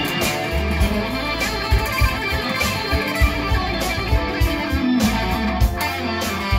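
Gretsch Players Edition Jet BT electric guitar played with a pick, a busy stream of picked notes and chords.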